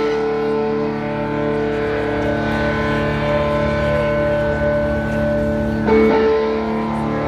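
Live rock band holding sustained, ringing guitar chords at concert volume; the chord changes about six seconds in, with scattered whoops from the crowd.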